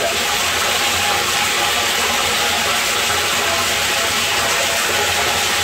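Water pouring steadily into a closed water tank as it fills, heard from inside the tank as an unbroken rushing hiss.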